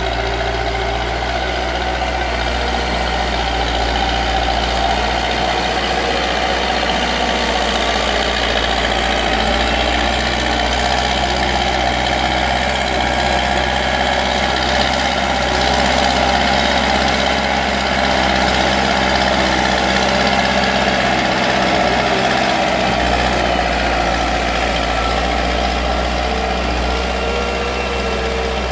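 Diesel engine of a JCB backhoe loader running steadily, its low engine note shifting slightly about a third of the way in and dipping briefly past two-thirds.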